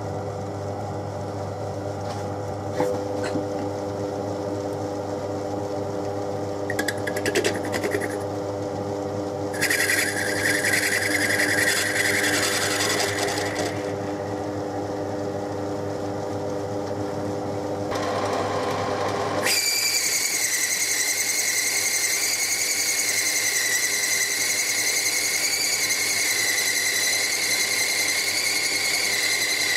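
Myford ML7 lathe running with a steady hum while a tool cuts free-cutting mild steel bar, the cutting noise rising in stretches. About twenty seconds in, the sound changes abruptly to a steady high-pitched whine.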